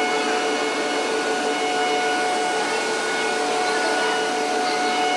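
Workshop machine motor running steadily: a constant whine of several fixed tones over an even noisy hiss.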